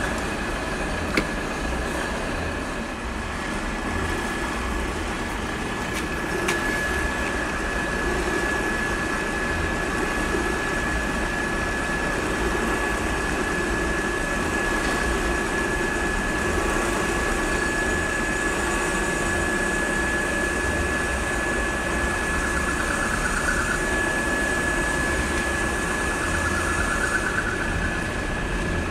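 Drill boring a hole through steel flat bar with a twist bit, running steadily while cutting, with a thin high tone held throughout.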